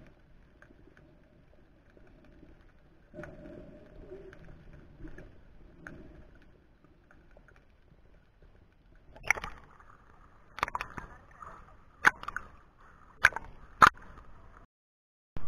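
Sea water heard through an action camera's waterproof housing: a faint, muffled underwater murmur, then from a little past halfway a splashy sloshing with several sharp knocks against the housing, cutting off abruptly shortly before the end.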